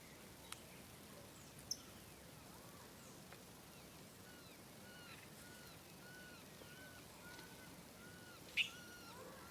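Faint birdsong: one bird repeating a short arched note about twice a second from around four seconds in, with other birds chirping over it and a sharper, louder call near the end.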